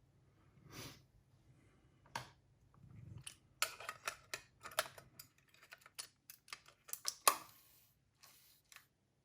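Irregular small plastic clicks and taps of a partly disassembled cassette walkman being handled on the bench and set up for a test run, with a couple of short rustles.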